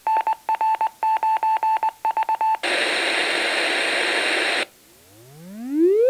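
Vintage General Electric mobile communications speaker playing a test signal: a Morse code ID keyed out in a steady beeping tone, then about two seconds of pink noise hiss that cuts off suddenly. Near the end a low tone begins and rises steadily in pitch, the start of a frequency sweep.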